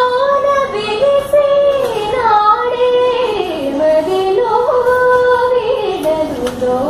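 A woman singing a slow melody, holding long high notes and gliding down between them.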